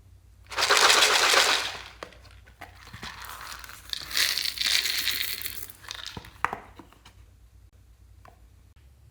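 Crinkling and rustling in two bursts of a second or more each, the first the loudest, followed by a few sharp clicks.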